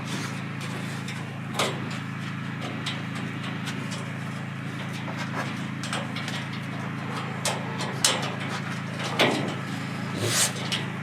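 Steady hum of a generator engine running, with a few short sharp scratches and knocks scattered through it as the raccoon clambers on its climbing branches.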